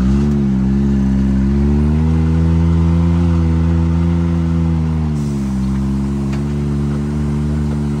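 Can-Am Maverick X3's turbocharged three-cylinder engine pulling the side-by-side slowly on light throttle in four-wheel drive with the diff locked. The engine note rises at the start, holds, then eases back down about five seconds in.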